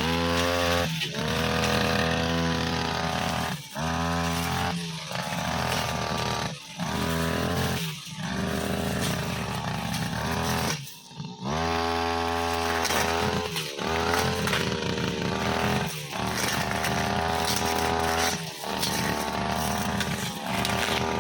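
Brushcutter engine with a cutting blade, revved hard again and again as it cuts through long grass and saplings; the pitch falls briefly each time the throttle eases and climbs back up, with one deeper drop about halfway through.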